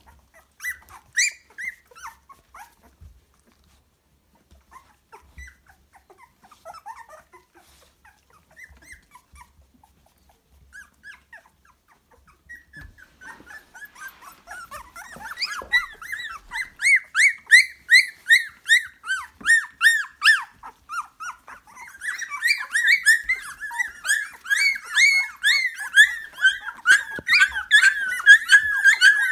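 Two-and-a-half-week-old Lapphund puppies whining and squealing. A few scattered squeaks at first, then from about halfway a dense, high-pitched crying that grows louder, with several pups overlapping near the end. They are hungry and upset that their mother has left the box.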